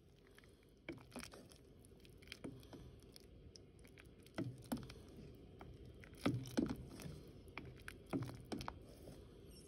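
A utensil stirring through a pot of chicken noodle soup while searching for the bay leaf: faint sloshing with soft, irregular knocks, a few louder ones in the second half.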